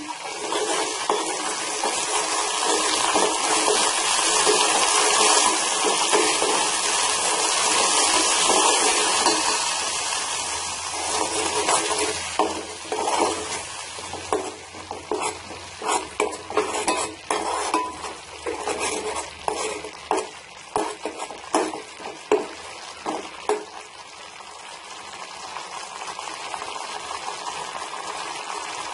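Ground onion, garlic and green chilli paste with mustard seeds sizzling as it is sautéed in hot oil, stirred with a steel ladle. A steady sizzle for the first third gives way to a run of quick clinks and scrapes of the ladle against the pan, then a quieter sizzle near the end.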